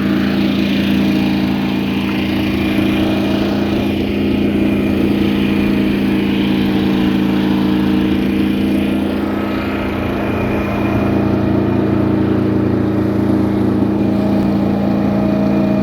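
Mighty Mite 412 circular sawmill's engine running steadily under way, with a slight dip in level about ten seconds in.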